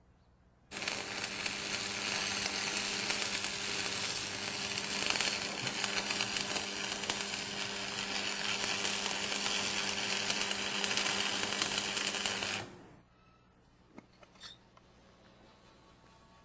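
Electric arc welding: a loud, steady crackle and sizzle with a faint electrical hum beneath it. It starts just under a second in and cuts off suddenly about twelve seconds in, and a couple of faint clicks follow.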